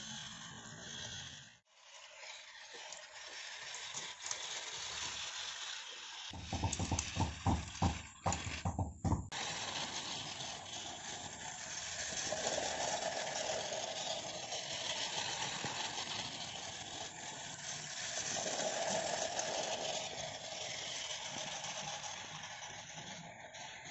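Battery-powered toy steam train running on plastic track: its small motor and gears whir and its wheels rattle on the rails, growing louder twice as it passes close. A burst of rapid loud clattering knocks comes in the middle.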